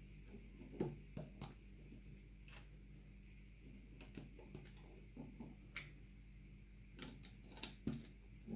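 LEGO bricks being handled and snapped together: a dozen or so small, irregular plastic clicks, over a steady low hum.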